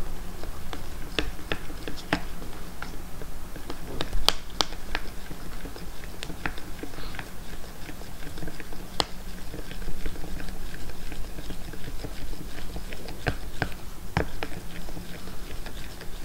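Plastic fork stirring food coloring into oil in a small plastic cup, its tines clicking and tapping against the cup's sides at irregular intervals.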